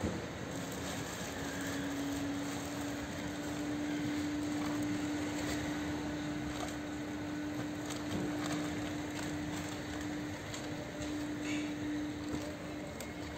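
Car park background noise with a steady low hum, and a few light knocks and clicks as shopping bags are loaded into a car boot.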